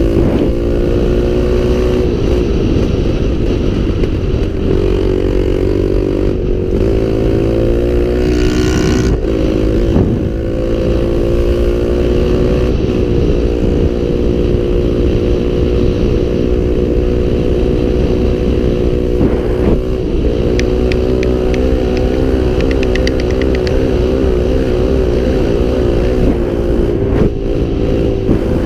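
Small off-road engine running steadily at a held speed, its pitch wavering only slightly. There is a short hiss about a third of the way in and a quick run of light ticks about three-quarters through.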